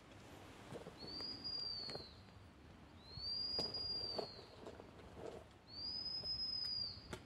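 A dog-training whistle blown in three long, high, steady blasts of about a second each, evenly spaced, as a gundog handler signals a cocker spaniel.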